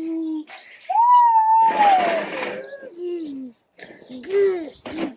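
Young child's wordless vocal sounds: hoot-like calls and a long, high call that slides down in pitch, with a brief noisy burst about two seconds in.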